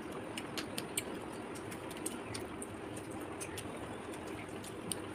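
Eating by hand: irregular small clicks and smacks of chewing and of fingers working rice on clay plates, several a second, over a steady low room hum.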